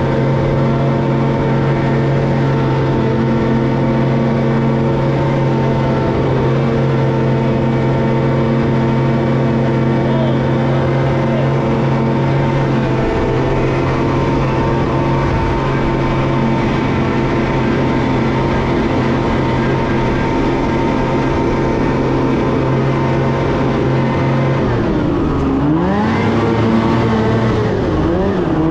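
Ski-Doo snowmobile engine running at a steady high throttle while skipping across open water. Near the end the engine note dips and rises back twice.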